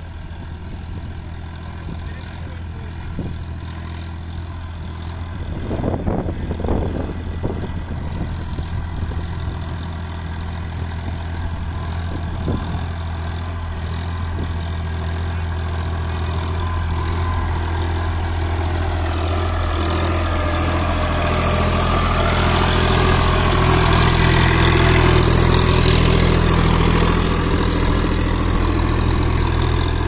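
Massey Ferguson 8055 Magnatrak tractor's diesel engine running steadily, growing louder through the second half. A few short knocks come about six to seven seconds in and again about twelve seconds in.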